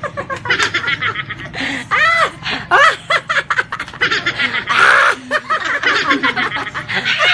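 A group of young people laughing together in rapid, overlapping bursts, some high-pitched.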